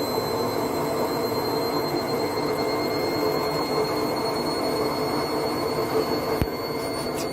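Steady rush of running water from a tap or shower as a cat is washed, with a short click about six and a half seconds in.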